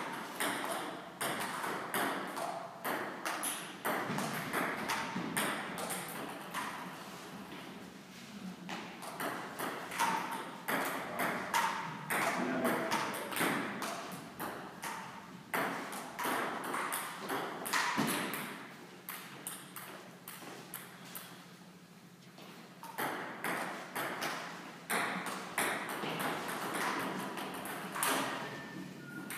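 Table tennis rallies: the ball clicks off bats and table in quick runs of hits, broken by short pauses between points. The hitting thins out for a few seconds about two-thirds of the way through.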